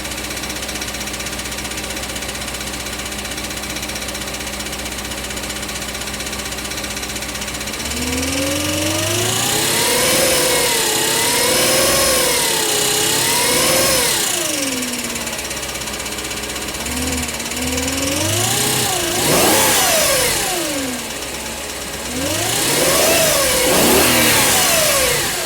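Audi B6 S4 4.2-litre V8 idling with a rattle in time with engine speed, then revved repeatedly from about eight seconds in, the pitch rising and falling with each blip. The rattle comes from the starter's pinion gear: its failing return spring leaves the pinion short of fully retracting, so it strikes the flywheel until revving throws it back.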